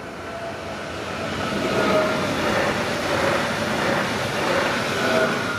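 Electric SÜWEX multiple-unit passenger train passing over a level crossing: the rush and rumble of its wheels on the rails builds over about two seconds, stays loud, and begins to fade near the end, with a faint steady whine in it.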